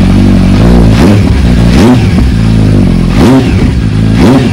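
2022 Kawasaki H2 SX's supercharged inline-four idling through a Pipewerx aftermarket end can, blipped four times on the throttle, each rev rising and falling quickly back to idle.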